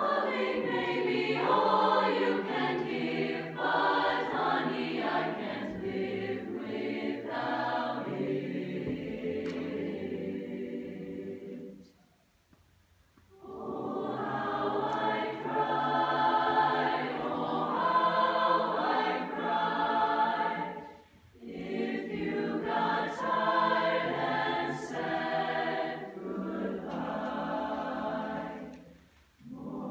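High school choir singing in parts, with a full rest of about a second and a half about twelve seconds in and two brief breaks later on.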